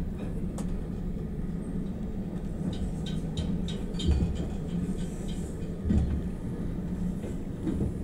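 Railway passenger carriage rolling slowly, a steady low rumble, during the wheel change at the gauge border. A run of light metallic clicks comes about three seconds in, and two heavy thumps follow, one about four seconds in and one about six seconds in.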